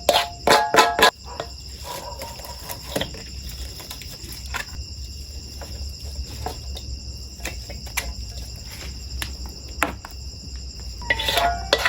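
Insects calling in a steady high-pitched drone, with a few sharp knocks in the first second.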